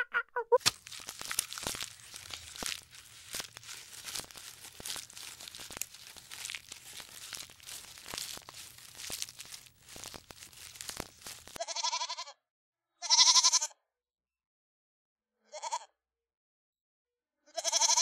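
An animal: a dense crackling, crunching noise with many sharp clicks for about eleven seconds, then four short, high-pitched bleating calls with silent gaps between them.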